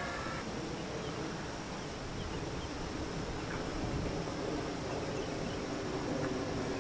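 Radio-controlled model airplane's electric motor, a faint distant buzz overhead that grows a little louder in the second half as the plane comes around to land.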